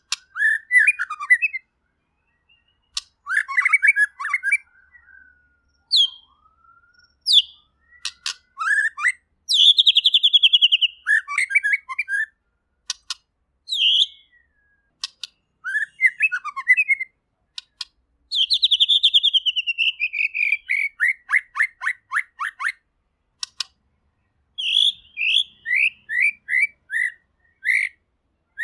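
White-rumped shama (murai batu) singing a loud, varied song. Short whistled phrases and sharp clicks alternate with long, rapid trills that fall in pitch, given in bursts with brief pauses between.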